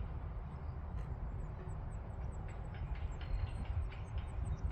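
Wind buffeting the microphone: a low, unsteady rumble with no motor sound, the glider gliding unpowered far overhead.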